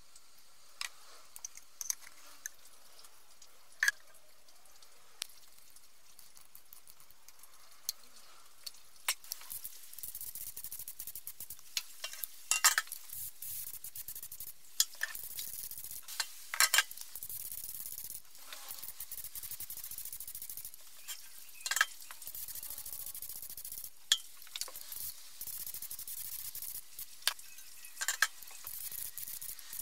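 Compressed-air spray gun hissing in several passes of a few seconds each as it sprays black paint onto a masked motorcycle fuel tank. Before the spraying starts there are sharp clicks and taps as the metal paint cup and gun are handled, and a few more clicks between passes.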